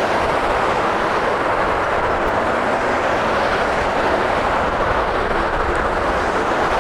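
Jet airliner engines making a loud, steady roar.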